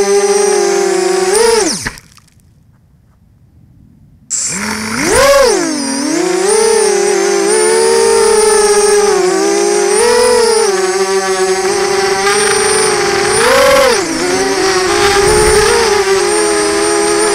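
Small quadcopter's electric motors and propellers whining in a steady stack of tones whose pitch swells up and down with the throttle. About two seconds in the sound falls away almost to nothing for about two seconds, then comes back with a sharp rise in pitch as the throttle is pushed up, followed by several more swells.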